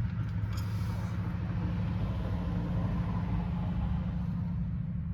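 Steady low rumble with a faint hiss from running machinery in the background.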